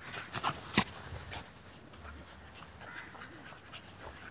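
Beagle puppies playing, with a few short, sharp yips in the first second, the loudest just under a second in, then quieter.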